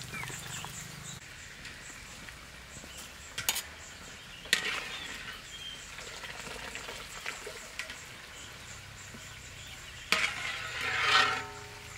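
Rural outdoor background with small birds chirping, a few sharp knocks and clatters, and a louder, drawn-out animal call lasting about a second and a half near the end.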